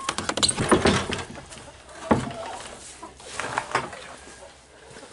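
Knocks and rattles of a wooden coop door being opened and stepped through, a quick cluster in the first second and a single sharp knock about two seconds in.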